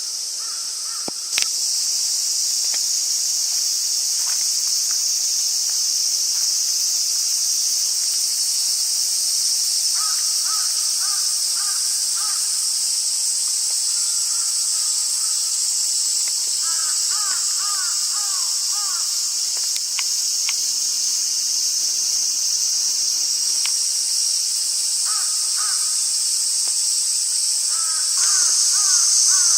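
A steady, high-pitched chorus of insects shrilling, with a bird calling over it several times in short series of repeated notes.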